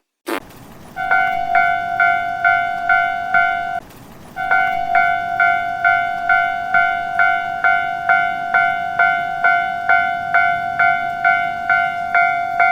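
Railway crossing warning bell ringing in a steady clang, about two strikes a second. It stops briefly about four seconds in, then starts again and keeps going.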